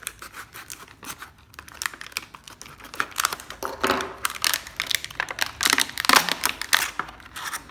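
Packaging crinkling and rustling as it is handled, in irregular crackles with louder bursts about three seconds in and again near the end.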